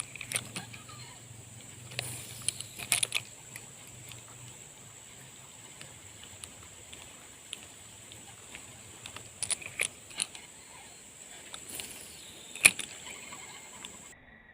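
Scattered sharp clicks and knocks in small clusters, the loudest near the end, over a steady thin high-pitched whine that cuts off abruptly at the very end.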